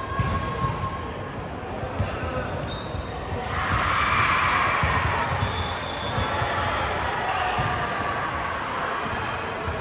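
Basketball bouncing on an indoor court during play, with scattered voices and crowd noise in the hall; the crowd noise swells about three and a half seconds in, then settles.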